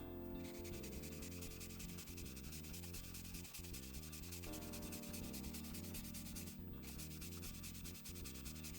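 Ink blending brush rubbing grey ink onto cotton card in quick, steady scrubbing strokes.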